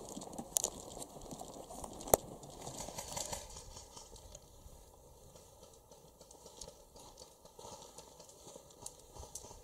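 Faint rustling and crinkling of handling and movement, busier for the first few seconds and then fainter, with two sharp clicks, the louder one about two seconds in.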